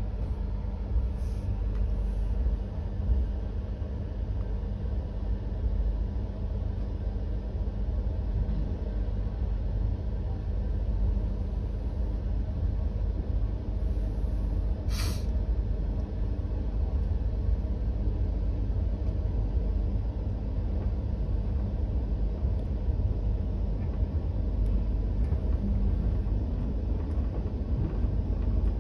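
Duronto Express passenger coach rolling slowly through a station, heard from inside the coach as a steady low rumble of wheels on track. A brief sharp hiss stands out about halfway through.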